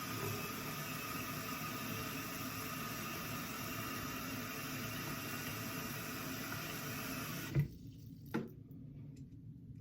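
Tap water running steadily into a sink, then shut off abruptly about three-quarters of the way through with a thump, followed by a short knock.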